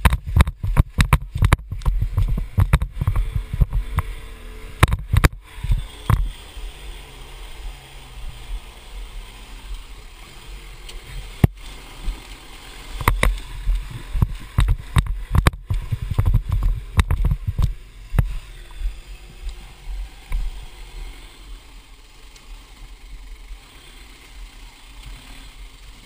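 Modified four-wheel-drive crawling over a rocky track: a low engine and drivetrain rumble with irregular knocks and thumps as the vehicle and its mounted camera jolt over rocks. The knocks come thick in the first few seconds and again around the middle, then ease off near the end.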